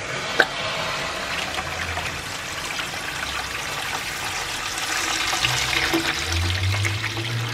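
Water gushing steadily into a plastic bucket as a radiator is flushed, carrying out black sludge.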